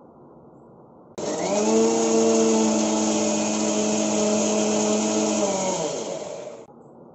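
Electric kitchen mixer grinder grinding sautéed tomato, shallots, cashews and spices into a fine paste. It starts abruptly about a second in and runs with a steady motor whine, then slows and falls in pitch as it winds down near the end.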